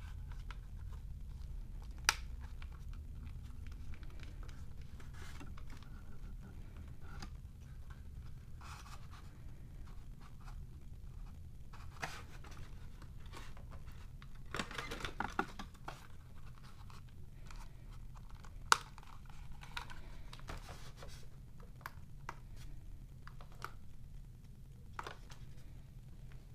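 Handling noise from unpacking a plastic toy drone and its parts in a styrofoam tray: scraping, rustling and crinkling of plastic packaging, with two sharp plastic clicks, one a couple of seconds in and one about two-thirds through, and a busier patch of rustling around the middle.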